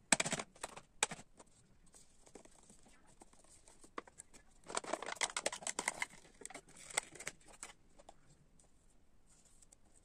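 Crinkling and crackling of a plastic cotton-candy tub as its peel-off seal is pulled back: short crackles at the start and about a second in, then a dense spell of crackling from about five to seven and a half seconds, with only faint rustles near the end.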